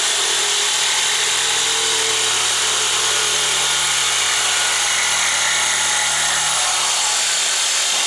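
Electric jigsaw running steadily as its blade cuts a 45-degree mitre through a length of timber architrave. Its lower tone drops away about seven seconds in while the high noise of the cut carries on.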